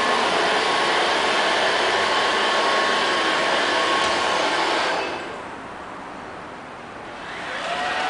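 LL-302 robot vacuum cleaner running, a loud steady whir of its motor and brushes with a faint whine; the noise drops away about five seconds in.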